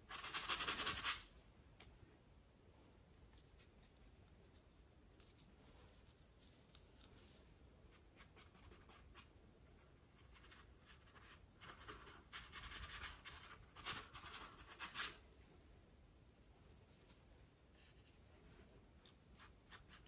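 Paintbrush bristles scratching and rubbing acrylic paint onto a stretched canvas, in short runs of strokes: one at the start and two more about two-thirds of the way through, faint in between.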